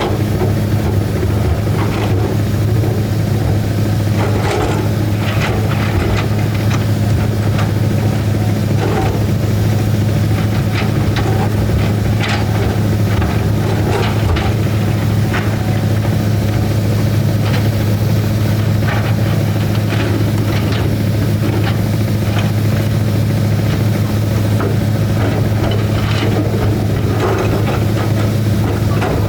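Heavy diesel engine of a tracked excavator running steadily, a deep even hum, with short knocks and clatter scattered throughout from the machine at work.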